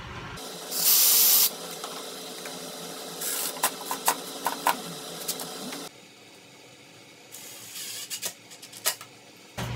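A cordless drill fitted with a self-centering bit runs in one short burst about a second in, drilling a pilot hole through a metal drawer-slide track. Scattered clicks and short bursts follow as screws are driven into the track with a cordless driver.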